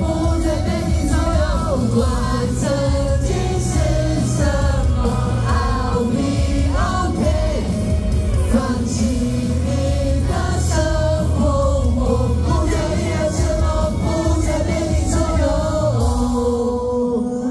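Male vocal group singing live into microphones over amplified pop music with a steady bass line.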